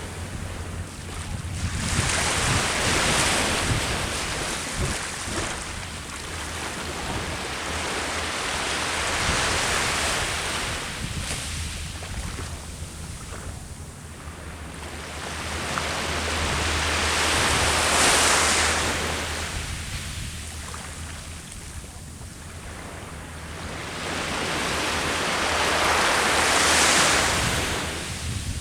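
Ocean waves breaking on the shore, the surf swelling and falling away in slow surges about every eight seconds, over a steady low rumble.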